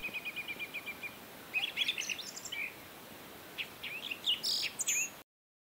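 Small birds chirping and twittering: first a fast, even trill of high chirps, then scattered, varied calls. The sound stops abruptly near the end.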